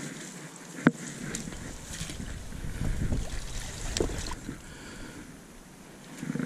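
Water sloshing as a pike is scooped from the river into a landing net, with wind and handling rumble on the microphone that swells in the middle. A sharp knock about a second in.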